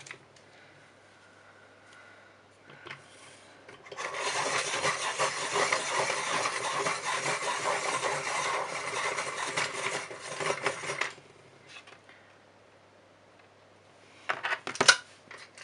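A Caran d'Ache Luminance coloured pencil being sharpened: a rasping, scraping sound for about seven seconds, then a few sharp clicks near the end.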